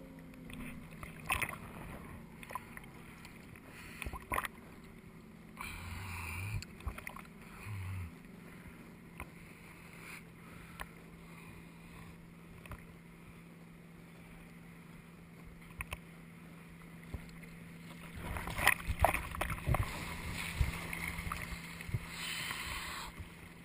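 A boat engine idling with a steady low hum. Scattered knocks and short bursts of noise sound over it, busiest near the end.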